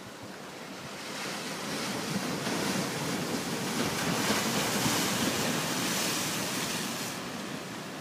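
Ocean surf: a wave builds from about a second in, washes in loudest around the middle, and recedes near the end.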